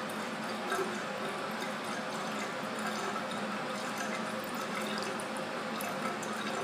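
Steady watery hiss in a filled bathtub, with faint scattered drips and ticks.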